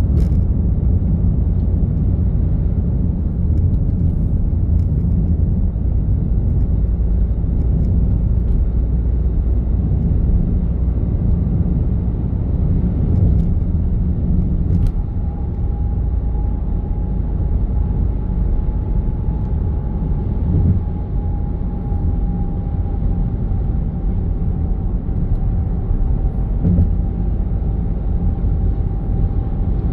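A vehicle driving in traffic, with steady low road and engine rumble. About halfway through a thin, steady whine joins in and sinks slowly in pitch.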